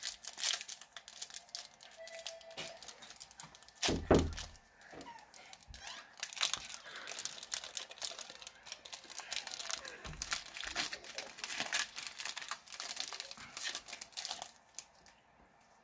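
Foil booster-pack wrapper crinkling and tearing as it is opened by hand, with busy crackling handling of the pack and cards. There is a thump about four seconds in and a softer one near ten seconds.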